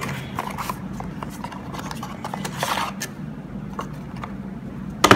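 Cardboard product box and its paper insert being handled and opened: rustling and scraping with scattered small clicks, and a sharp click near the end.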